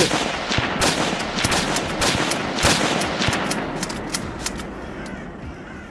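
Gunfire sound effect: a rapid, overlapping burst of many shots from the soldiers' rifles, loudest at first and dying away over the last couple of seconds.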